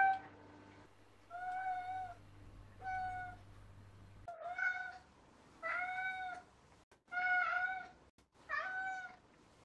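Ragdoll cat meowing for food: six drawn-out, pitched meows, about a second apart.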